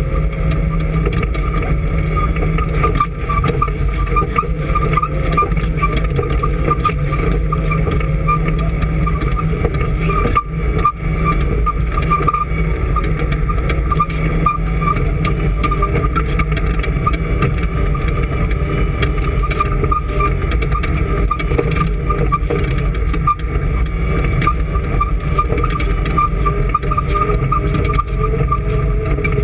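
Off-road race vehicle's engine running hard and continuously, with a steady high whine over the rumble and noise of the run.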